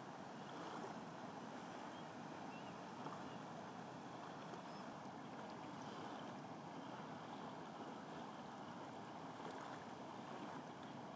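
Steady rush of white water tumbling over the rocks of a small waterfall.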